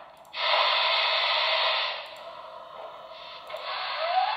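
Onboard sound decoder of a Broadway Limited Imports Santa Fe Blue Goose HO steam locomotive model playing a loud burst of steam hiss for about a second and a half as the locomotive starts off, then quieter hissing. Near the end a whine begins, rising steadily in pitch.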